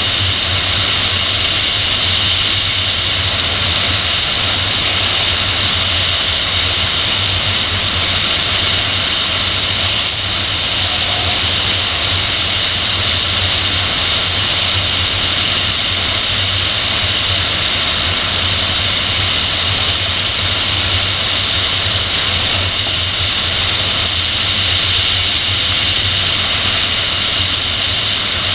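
Steady rush of airflow over a camera mounted on the tail of a PIK-20 sailplane in gliding flight: an even high hiss over a low drone.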